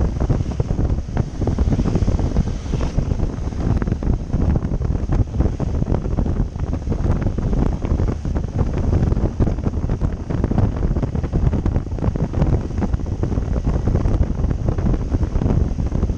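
Wind buffeting the microphone of a camera on a moving motorcycle: a loud, steady rumbling rush that flutters constantly.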